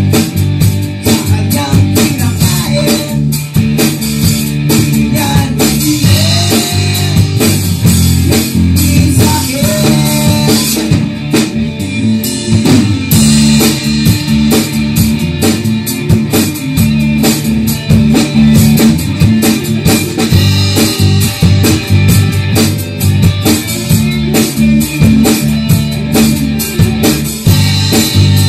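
Rock band playing loudly: electric guitars, bass guitar and drum kit.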